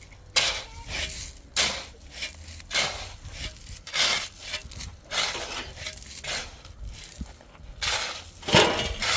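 Crunching, scraping strokes repeated about once a second, with the loudest one near the end.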